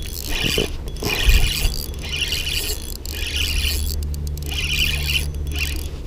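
Spinning reel working against a heavy hooked catfish, a squealing, scraping sound that surges and fades about once a second.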